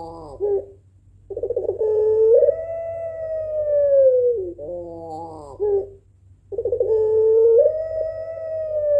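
A puter pelung, a caged domestic ring-necked dove bred for its long coo, cooing twice. Each coo opens with a quick stutter, swells into one long drawn-out note that slowly sags, and ends in a short falling note. The tail of an earlier coo is heard at the very start.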